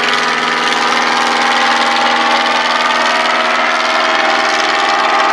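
Bristol Boxkite replica's 100 hp Rolls-Royce-built Continental O-200 flat-four engine running steadily in flight, a constant drone made of many even tones.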